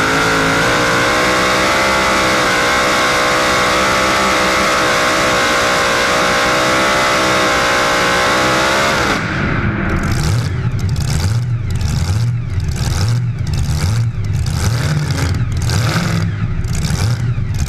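Pulling tractor's supercharged V8 engine running at steady high revs, then dropping about nine seconds in to a loping idle with an uneven pulse about twice a second.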